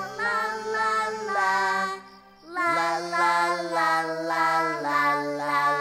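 Cartoon voices singing a children's song over a light musical backing, in long held notes, with a short break about two seconds in.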